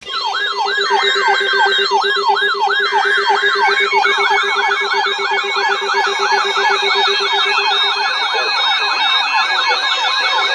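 Several electronic sirens sounding together, each rising and falling in pitch about twice a second, more of them layered in after about four seconds, over a steady low hum-like tone that stops about eight seconds in.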